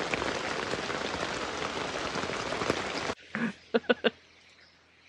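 Heavy rain falling steadily, a dense patter of drops, cut off suddenly about three seconds in. What follows is near quiet with a few short, sharp clicks.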